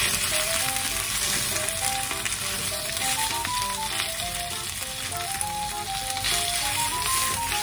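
Sliced pork and sausages sizzling steadily in hot sesame oil in a frying pan, with chopsticks stirring and separating the clumped meat. A soft background melody plays underneath.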